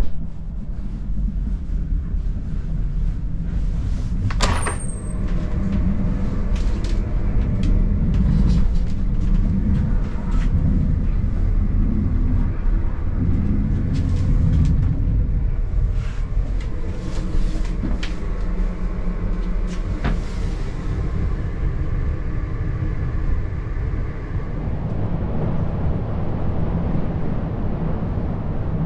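Inside a VR commuter train on the move: steady low rumble of the running train, with scattered knocks and clicks and one sharp knock with a brief high squeak about four seconds in.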